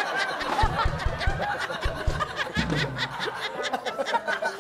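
Guests and studio audience laughing, with many sharp claps scattered through. Several low thumps come in the first two seconds.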